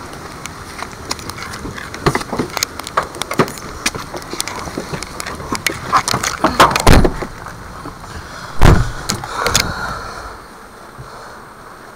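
Knocks, clicks and rustles as people climb into a car, with two heavy thumps about seven and nine seconds in, the loudest sounds.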